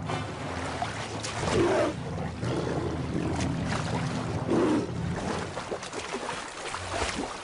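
Churning river water and heavy splashing as animals thrash through a fast current, with louder splashes about one and a half and four and a half seconds in.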